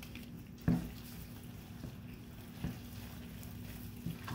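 Gloved hands squishing and kneading raw ground chicken and chicken pieces in a large pan: wet squelching, with a few soft thumps, the loudest about a second in.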